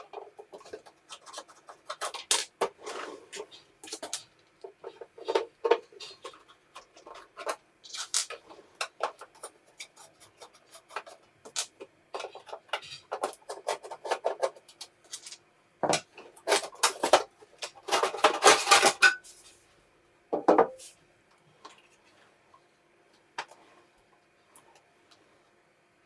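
Hands working on a rusty old desktop computer's metal parts: irregular clicks, knocks and clinking, with a dense clatter about eighteen seconds in and a single knock shortly after, then only faint ticks near the end.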